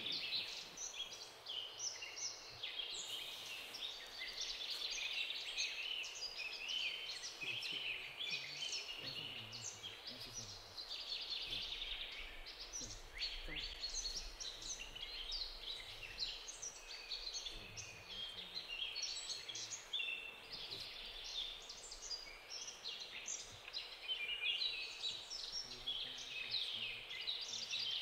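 A dense chorus of small birds, many short high chirps and calls overlapping without a break, over faint outdoor background noise.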